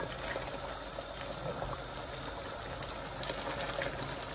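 Mutton pieces bubbling hard in a large pan of reduced stock with oil, a steady boiling with faint scattered pops.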